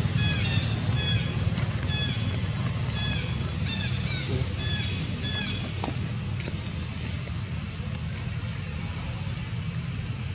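A bird's short chirping calls, repeated about twice a second and stopping about five and a half seconds in, over a steady low drone.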